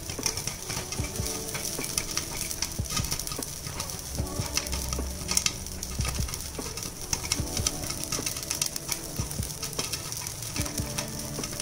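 Popcorn kernels popping in hot oil and butter inside a covered pressure cooker with its whistle removed: sharp pops, several a second, over a steady sizzle. The kernels are still popping, so the batch is not yet done.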